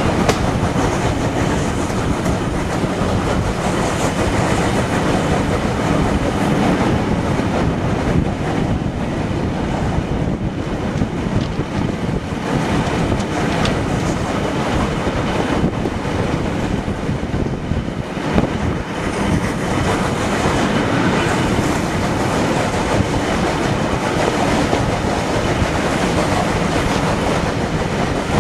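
A steam-hauled train running along the line, its coach wheels clattering steadily over the rails, heard from an open carriage window.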